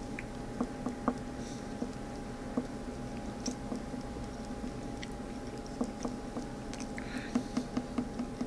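Close-up chewing of a soft filled donut with the mouth closed: scattered small wet clicks and smacks, coming more often near the end, over a steady room hum.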